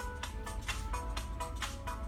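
Upbeat music with a quick steady beat and a bright, plinking melody of short notes.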